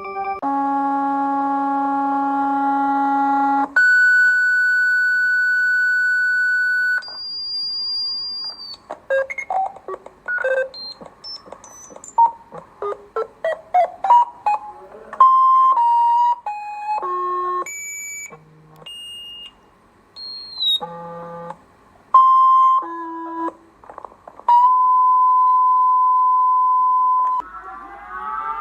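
Mock emergency alert system alarm made of synthesized electronic tones. It opens with a buzzy low tone, then a few seconds of steady high tones, then a long run of short beeps jumping between pitches. Near the end comes a steady tone of about three seconds, and in the last second a new rising, siren-like glide begins.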